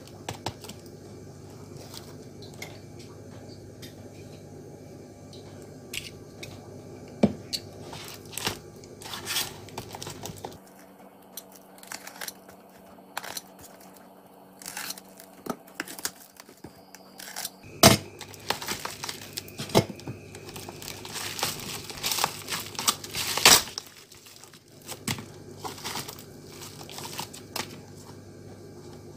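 Plastic parcel mailer and packing tape being cut open with a utility knife and torn away: irregular crinkling, crackling and tearing, densest and loudest about two-thirds of the way through.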